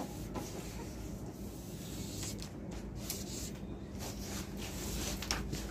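A hand rubbing and pressing along a WPC L-beading trim strip to stick it down on contact adhesive, with a few soft scrapes and taps over a low steady hum.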